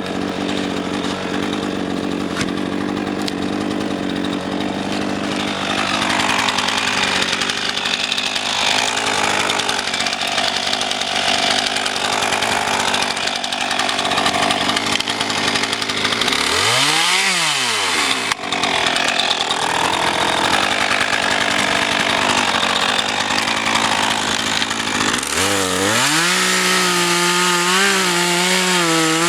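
RedMax GZ400 two-stroke chainsaw running hard while cutting firewood logs. About 17 s in the engine revs quickly up and back down, and from about 25 s it runs steadily at high revs with a slight waver in pitch.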